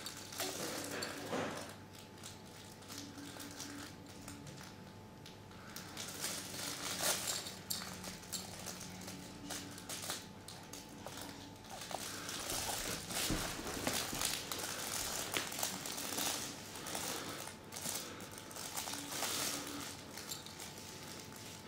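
Soft rustling and crinkling of a baby's play mat and fabric toys as a baby moves about on it on all fours, with scattered light taps.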